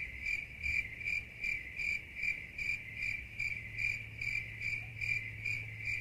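Cricket chirping: a high, even chirp repeating about two and a half times a second, the stock 'crickets' gag for an awkward silence.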